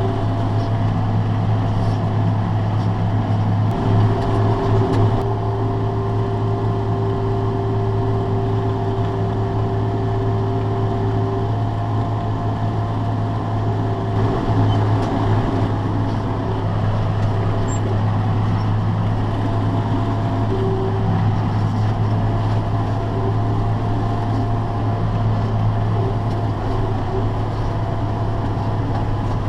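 Farm tractor and mechanical ear-corn picker running steadily at harvest: a constant low engine hum with a whining tone that comes and goes.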